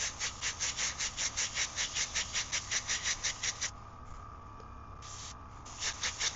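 Airbrush spraying paint in rapid hissing pulses, about seven a second, for about three and a half seconds, then one short puff, then pulsing again near the end.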